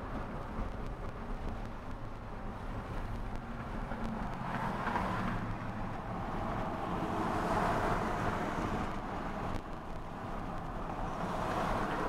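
Road noise inside a moving car's cabin as it drives across a steel truss bridge: a steady low rumble of engine and tyres with a tyre hiss that swells about four seconds in and again around seven to eight seconds.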